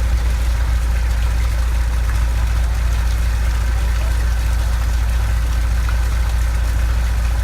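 Fishing boat engine running steadily, a deep, even low hum with no change in speed.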